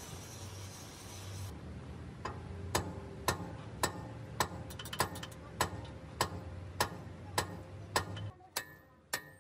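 Sharp metallic clicks, evenly spaced about two a second, from a hand tool being worked on a heavy truck's rear brake assembly. A low steady hum runs underneath and stops about eight seconds in.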